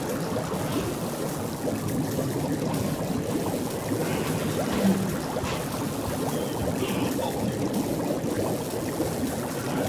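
Steady bubbling of water underwater, a dense run of small pops and gurgles.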